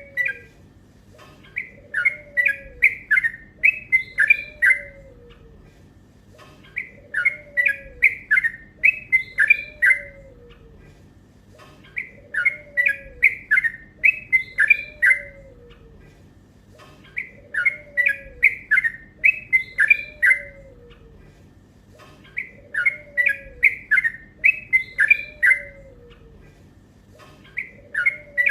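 Yellow-vented bulbul (trucukan) singing a rapid, lively song: phrases of quick notes, each about three seconds long, repeated about every five seconds.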